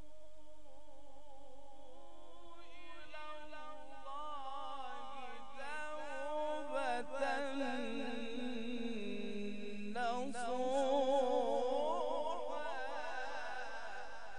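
A man reciting the Quran in the melodic, drawn-out tajwid style, holding long notes ornamented with rapid trills. His voice climbs a few seconds in, sinks to a low note about two-thirds through, then rises again.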